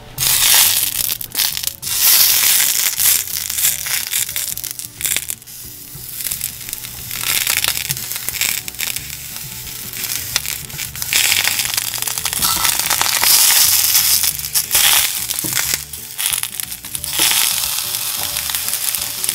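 Halved tomatoes sizzling in a hot cast-iron skillet as they are laid in one by one to roast, the hiss flaring up and dying back as each piece goes in.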